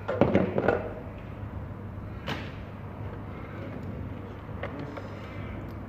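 Tools and wiring being handled on a workbench: a quick cluster of knocks and clatters in the first second, then single sharp clicks about two and four and a half seconds in, over a steady low hum.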